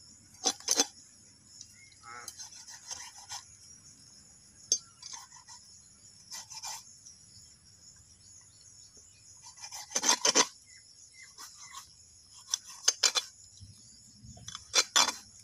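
A large broad-bladed knife cutting and scraping through the meat and bone of a skinned cow head, in short sharp strokes, a few seconds apart and loudest about ten seconds in. Insects chirr steadily in the background.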